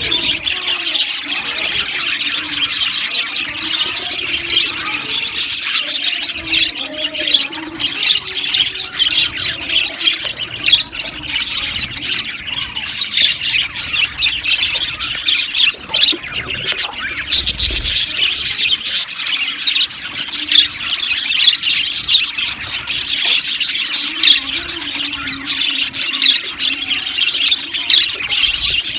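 A flock of budgerigars chattering without a break: a dense, busy mix of chirps, warbles and squawks.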